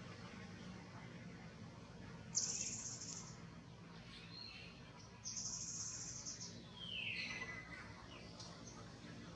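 High-pitched animal calls in forest: two buzzy, high calls of about a second each, the first about two and a half seconds in and the second about five seconds in, followed by a short call falling in pitch, over a faint steady hum.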